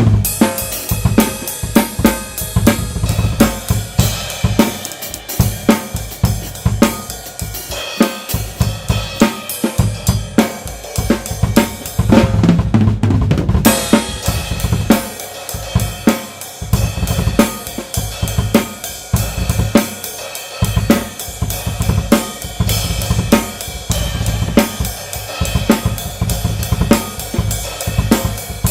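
Tama Swingstar drum kit with Meinl cymbals played in a steady groove: kick drum, snare, hi-hat and cymbals, picked up by a single Blue Yeti USB microphone. A busier, louder passage comes about halfway through.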